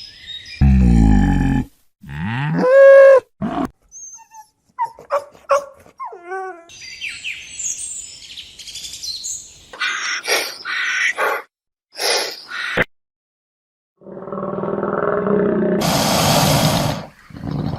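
A run of different animal calls cut one after another. A deep, pitched call comes about a second in, then a call that rises and falls, then scattered short high chirps. Several short harsh calls follow, and near the end a long, noisy, harsh call.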